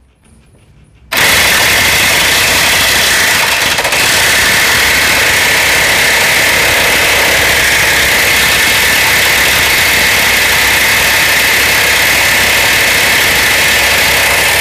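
DCK KPB22C corded electric 3/4-inch impact wrench hammering continuously on a bolt tightened to 600 Nm, starting abruptly about a second in and running on without a pause. The bolt does not come loose during this run.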